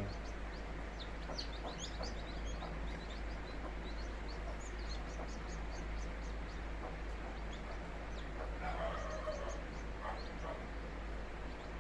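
Newly hatched country chicks peeping in many short, high cheeps, with a lower clucking call from the broody hen about nine seconds in.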